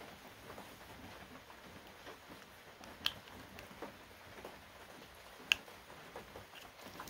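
Quiet handling of a white plastic wiring connector being worked onto its mating plug, with small sharp clicks about three and five and a half seconds in.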